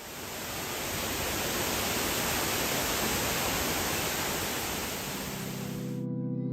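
Steady rush of a waterfall's falling water, a dense even hiss fading in at the start and cutting off suddenly near the end. Keyboard music chords come in shortly before it stops.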